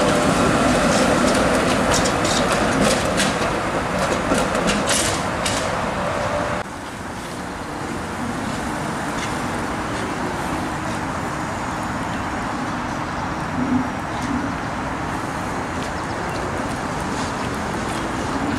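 A TTC articulated streetcar passing close on curved track, its wheels clicking sharply over the rail joints and switches under a steady whine. About six and a half seconds in, the sound cuts to a quieter, even rumble as a smaller CLRV streetcar approaches.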